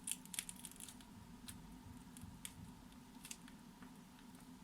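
Faint, scattered light clicks and ticks from metal tester probes touching the contacts of a TV's LED backlight strip, over a steady low hum.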